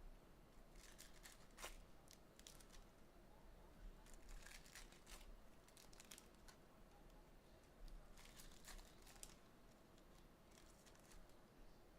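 Faint crinkling and tearing of a trading-card box's wrapping and foil card packs being opened, in short bursts every second or two.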